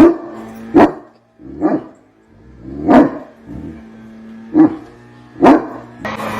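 A dog barking: about six short, sharp barks at uneven gaps, each loud.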